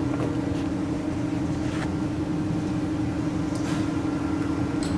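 Steady mechanical hum holding one constant tone over background noise, with a few faint clicks.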